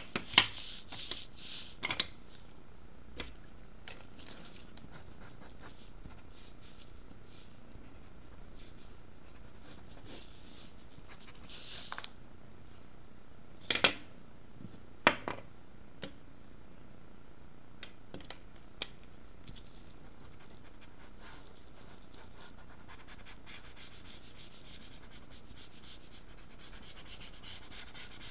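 Felt-tip marker scratching across paper: short strokes near the start and again about 11 seconds in, then steady back-and-forth scribbling from about 23 seconds in as an area is coloured in. A few sharp clicks fall in between.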